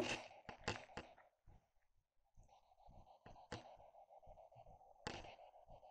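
Faint, thin static from a spirit box, a radio scanner sweeping through stations, coming through a small speaker, with scattered short clicks as it skips. The static breaks off for a moment about a second and a half in, then carries on. The box is playing very low, which the investigators suspect is a fault in the speaker.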